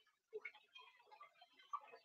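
Faint, irregular crackling and popping of cod pieces frying in hot grease in a foil pan.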